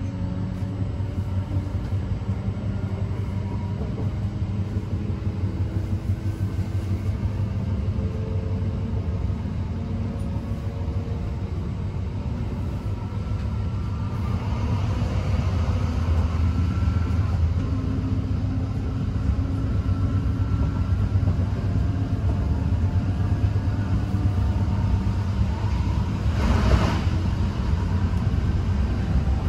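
Class 323 electric multiple unit heard from inside the passenger saloon while running: a steady low rumble from the wheels and track, with faint whining tones that slowly slide in pitch. It grows somewhat louder about halfway through, and there is one brief louder burst of noise near the end.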